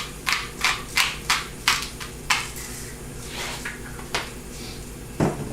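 Pepper being shaken or ground out: a run of quick, sharp strokes, about three a second, for a couple of seconds, a few more a second later, then a dull thump near the end.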